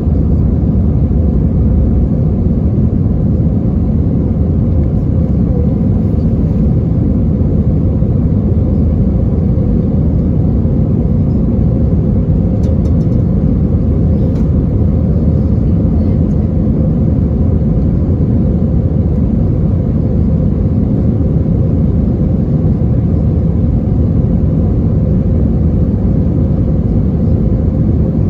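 Steady cabin rumble inside an Airbus A320-232, from its IAE V2500 engines and airflow, with a faint constant hum over it. The level holds even, with no spool-up or change.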